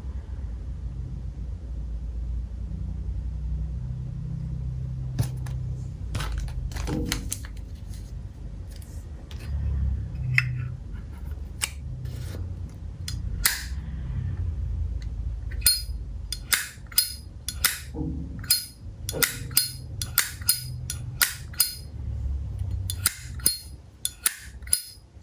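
Vintage 1967 Zippo lighter's hinged metal lid flipped open and snapped shut over and over, sharp metallic clicks, sparse at first and then about two a second in the second half, shown as its original, unrepaired click. A steady low hum runs underneath.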